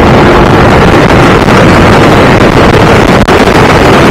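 Loud, constant wind noise buffeting a helmet-mounted SJCAM SJ8-series external microphone in its stock foam cover, from riding a motorcycle at speed with the visor open.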